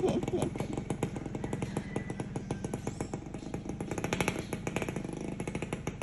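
Motorcycle engine running as the bike rides away, a rapid even beat of firing pulses that slowly grows fainter.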